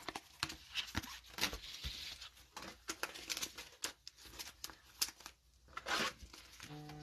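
Faint crinkling and clicking of trading cards and their cello-pack wrapper handled in nitrile-gloved hands. A short low buzz near the end marks an auction ending.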